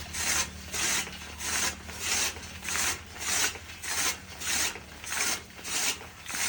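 Chaff cutter chopping grass: its blades slice the fodder in a steady rhythm of rasping cuts, a little under two a second.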